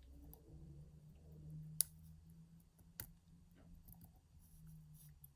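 Lock pick working the pin stack of a practice padlock: faint small ticks, then two sharp clicks a little over a second apart, with a steady low hum underneath.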